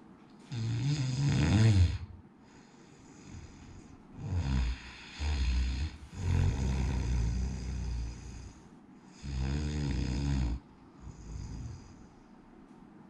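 A man snoring in his sleep with his mouth held shut by an elastic anti-snoring chin strap: about five snores, each one to two and a half seconds long, with quiet gaps between and a fainter one near the end. The strap keeps his mouth closed but does not stop the snoring.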